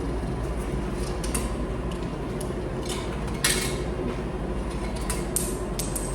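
Coins clattering out of a coin change machine as a 500-yen coin is changed: several sharp metallic clinks, the loudest about three and a half seconds in. A steady machine hum runs underneath.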